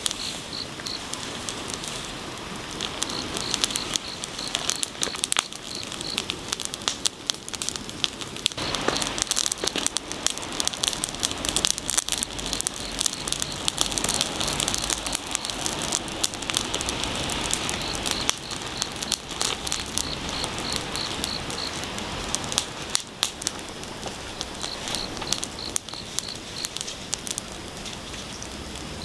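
Wood bonfire crackling and popping in dense, irregular snaps. A high insect chirp pulses in short trains at the start and again in the second half.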